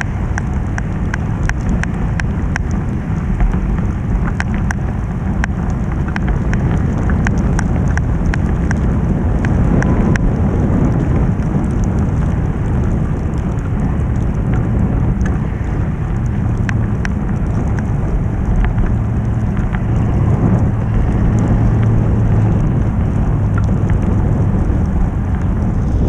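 Wind buffeting the microphone while cycling through a snowstorm: a loud, steady low rumble with many small sharp ticks scattered through it.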